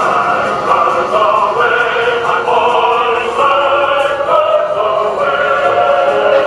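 Choral music with sustained chords that change every second or so.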